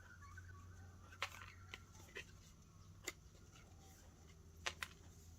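A few light, sharp clicks and taps of punched cardboard box-insert pieces being handled and set down, over a quiet room's low hum.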